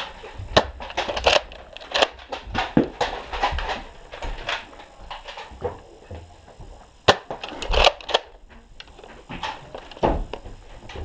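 Irregular knocks, thuds and clatter from movement on a wooden floor, with pauses between them and the loudest knocks about seven to eight seconds in.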